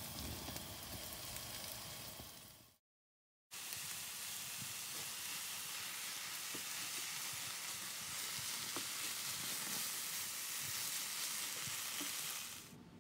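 Shredded chicken, onions and barbecue sauce sizzling steadily in a hot pan, with light scraping clicks of a wooden spatula stirring it. The sound cuts out abruptly for under a second about three seconds in, then the sizzling carries on.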